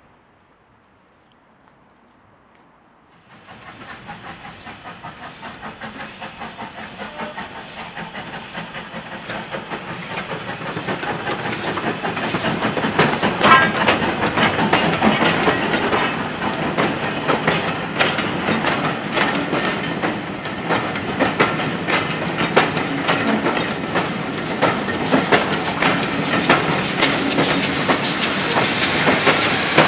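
A steam-hauled train drawing near and running close by, with a rhythmic clatter of wheels over rail joints. It starts about three seconds in after near quiet and grows louder for about ten seconds, then stays loud.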